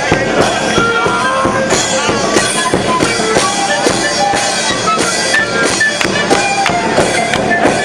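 Live street-band music: drums beating steadily under short held notes from wind instruments.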